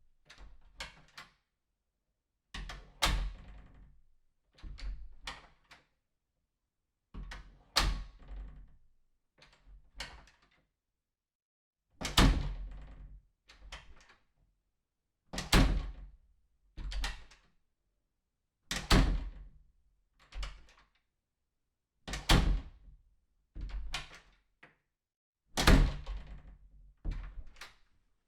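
A series of doors closing and slamming shut, about ten in turn, each a sharp thud with a short ringing tail, some with smaller latch clicks and knocks around them, with silent gaps of a second or two between.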